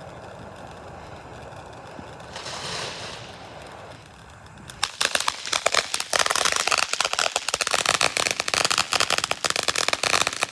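Consumer firework going off: a short fizzing hiss about two seconds in, then from about five seconds a dense run of rapid, sharp crackling pops.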